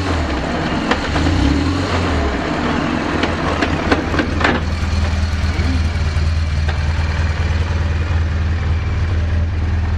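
BMW R1200GS flat-twin boxer engine idling steadily. A few sharp clicks sound about three to four and a half seconds in.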